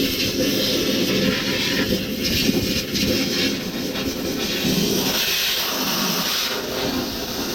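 Steady hiss of a high-pressure compressed-gas jet blowing through a plugged condenser coil to clear the packed dirt.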